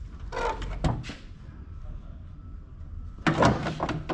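Crumpled body panel on a wrecked Volvo VNL semi cab being handled, giving two short bursts of rattling and scraping, the second a little louder, over a steady low hum.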